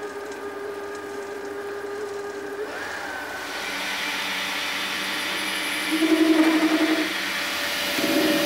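Small 10x22 metal lathe running with a steady whine. About three seconds in the sound shifts and turns louder and hissier, with a louder warbling stretch about six seconds in.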